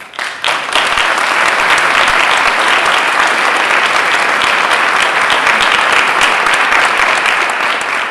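Audience applauding after a talk: dense, steady clapping that breaks out at once and swells over the first second.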